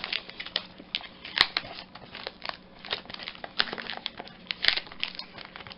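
Cardboard mailer and its wrapping handled and pulled open by hand: irregular crinkling and rustling, with a few sharper clicks, the strongest about a second and a half in and again near the end.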